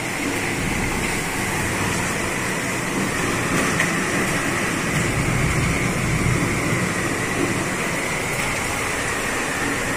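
Torrential rain from a thunderstorm pouring down steadily, an even dense hiss of water with no breaks.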